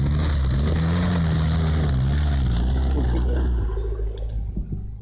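Suzuki 4x4's engine revving hard under load as it drives through a muddy ditch, its pitch rising and falling, with mud and water splashing. The engine sound drops away about three and a half seconds in.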